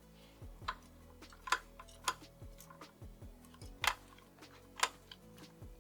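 Sharp, irregular clicks and taps of hard metal and plastic parts being handled as a CPU air cooler is fitted to the motherboard, over faint steady tones.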